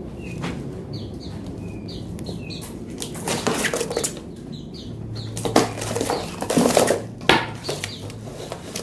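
Small songbirds fluttering and flapping their wings in several loud bursts, with a few short falling chirps in the first couple of seconds.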